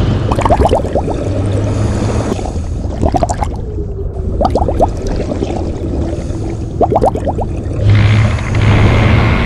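Air bubbles gurgling underwater in repeated bursts of short rising chirps. A low hum comes in twice, about two seconds in and again near the end.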